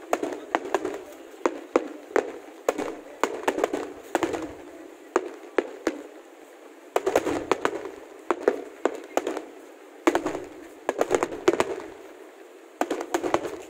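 Aerial fireworks bursting: sharp bangs and crackles in quick clusters, with short lulls between volleys.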